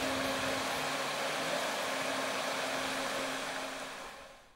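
Steady rushing of a forest stream flowing past, fading out near the end.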